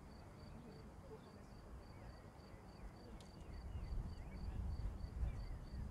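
An insect chirping in a fast, even pulse, about four chirps a second, with a few faint bird calls, over a low outdoor rumble that grows louder about two-thirds of the way through.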